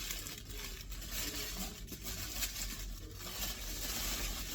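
Rustling and crinkling of sneaker wrapping being handled and pulled open by hand.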